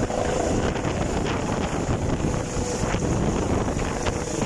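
Helicopter lifting off close overhead. Its rotor downwash hits the microphone as loud, steady wind noise over the rotor and engine sound.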